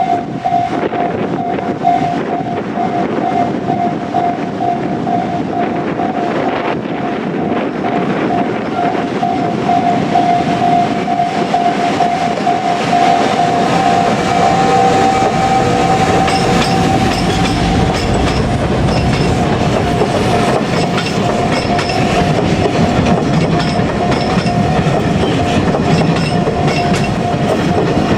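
Freight train hauled by a JR Freight EF510 electric locomotive rolling through a level crossing, its wagons clattering over the rail joints, while the crossing's warning bell rings steadily throughout.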